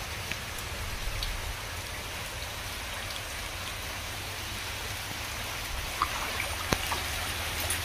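Steady rain falling on standing floodwater and the yard around it. A couple of sharp taps come through near the end.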